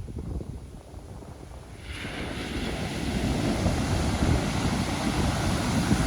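Ocean surf: about two seconds in a wave breaks and its wash sets up a broad hiss that grows louder, over a low wind rumble on the microphone.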